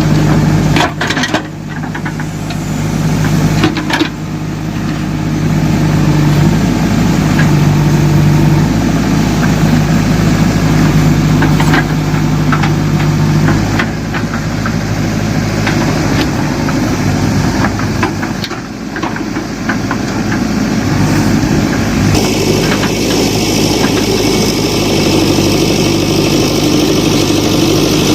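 A backhoe loader's engine runs steadily, its pitch shifting a little with load as it digs. A few metallic clanks come in, one near the start and one about two thirds of the way through.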